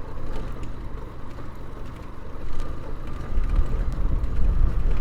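Motorcycle being ridden off-road: the engine runs with a low road and wind rumble, which grows heavier about three seconds in.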